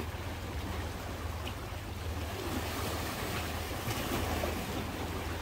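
Small waves of a calm sea washing against shoreline rocks, over a steady low rumble.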